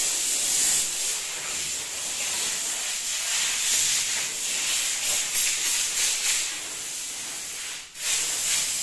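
Electric actuator motor of a power recliner running as it moves the backrest and footrest, a steady whirring hiss that stops for a moment about eight seconds in and then starts again.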